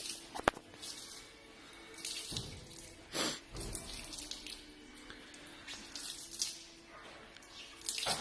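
Water from a hose spraying and splashing onto a horse's wet coat and the wash-bay floor, coming and going in bursts. There is one sharp click about half a second in.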